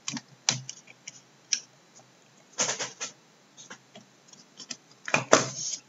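Scattered clicks and scrapes of a red dot sight being fitted onto an M4-style airsoft rifle's top rail. There are longer scrapes about two and a half seconds in and again near the end, the later one the loudest.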